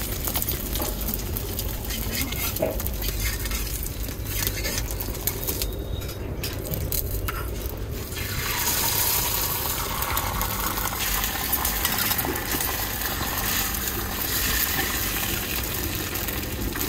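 Beaten egg sizzling as it fries on a hot iron tawa over a wood fire, the hiss starting about halfway through, with a spatula scraping on the pan before it. A low, steady rumble runs underneath.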